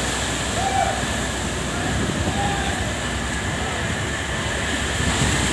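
Steady rushing rumble of a heavy storm at sea, wind and waves, with faint short tones near the start.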